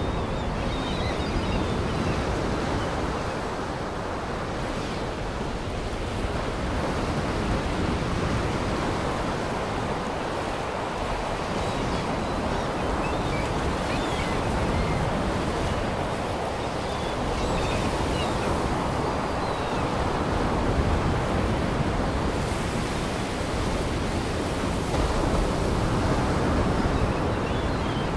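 Steady rushing of surf breaking on a shore, mixed with wind, swelling and easing slowly.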